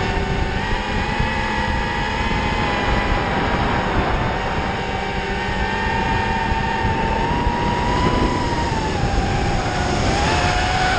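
FPV racing quadcopter's brushless motors and propellers whining, heard from the camera on board, the pitch wavering with throttle and dipping near the end before rising again. Wind buffets the microphone underneath.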